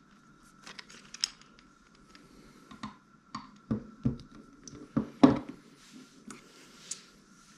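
Clicks, taps and a few heavier knocks of a Shimano Stella SW 30000 spinning reel and its handle being fumbled while the handle is screwed in by hand. The handle turns the wrong way because it has a left-handed thread. The loudest knocks come in a cluster around the middle, over a faint steady high hum.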